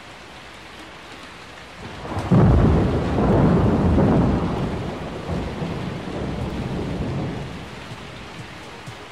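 Thunderstorm: steady rain, then a clap of thunder breaks in about two seconds in and rumbles for several seconds before fading back under the rain.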